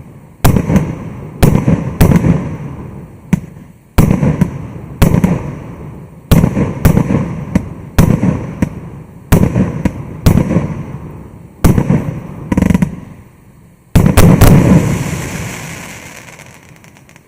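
Maxsem GWM5038 multi-shot firework going off: a steady run of loud aerial bursts, roughly one or two a second, each bang trailing off in a rumbling echo. A final quick cluster of bursts comes about fourteen seconds in, then the sound fades away.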